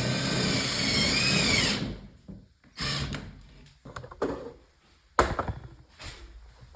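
Power drill driving a screw into a wooden bed slat: the motor whines steadily for about two seconds, its pitch dipping briefly under load before it stops. Several short wooden knocks and clatters follow, one sharp knock about five seconds in.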